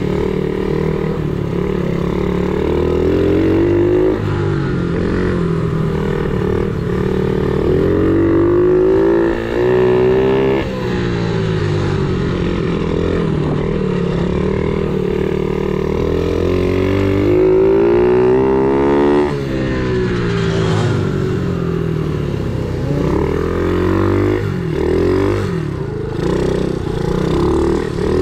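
Kayo pit bike engine revving as it is ridden round a grass track, the pitch climbing under throttle and then dropping sharply, over and over through the laps.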